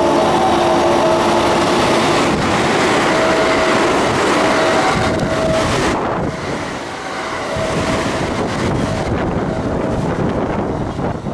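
Electric train running close by: loud rolling noise of wheels on rail, with a steady electrical hum that comes and goes.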